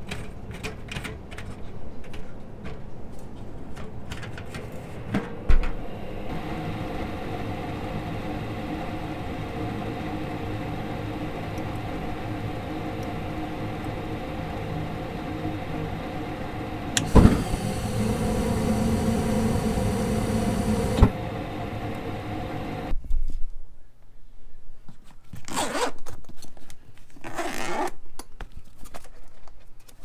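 Amana gas furnace running: the draft inducer motor hums steadily, and past the middle a click brings about four seconds of burner rush that ends with another click as the burners cut out. Burners dropping out soon after lighting is the fault blamed on a dirty flame sensor. Before this the sheet-metal front panel clatters off, and afterwards tools rustle in a bag.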